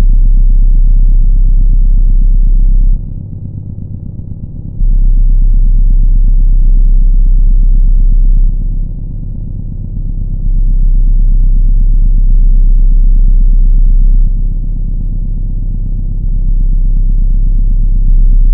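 A loud, deep rumbling drone with nothing high in it, its loudness dropping and jumping back abruptly several times.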